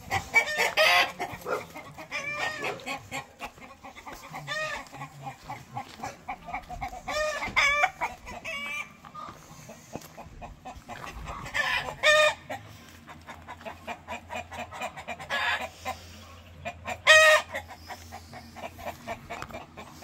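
Chickens clucking and cackling over and over, short pitched calls with louder ones about 12 and 17 seconds in: alarm calls with a snake stalking the yard.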